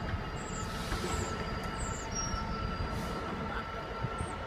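Class 66 diesel-electric freight locomotive approaching from a distance, a steady low rumble with a faint steady high whine above it.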